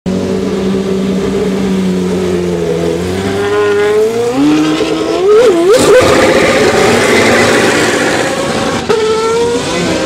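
A GP2 race car's 4.0-litre V8 runs at low revs, climbs, and is blipped twice. It then launches with rear wheelspin, revs held high over the noise of the spinning tyres, and about nine seconds in the pitch drops at a gear change and climbs again.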